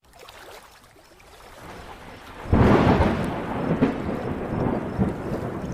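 Thunder: a faint low rumble builds, then a sudden loud clap about two and a half seconds in rolls on into a long rumble.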